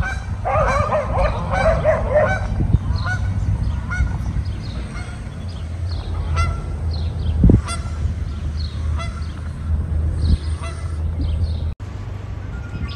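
A goose honking over and over in a quick run for about two seconds, then small birds chirping, all over a steady low rumble.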